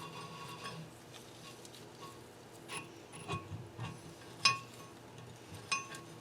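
A few separate sharp metallic clinks and clicks of small steel parts and hand tools being handled during valve spring and keeper installation on a cylinder head. The loudest clink is about four and a half seconds in, with another near the end.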